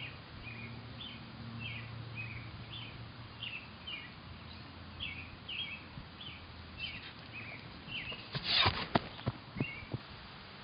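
A songbird chirping short repeated notes, about two a second. Near the end, a quick run of loud thuds: a sprinter's footfalls on grass as he passes close by.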